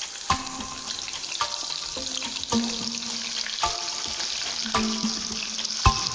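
Freshly added sliced onions sizzling in hot oil in an aluminium pressure cooker pan, turned with a steel ladle.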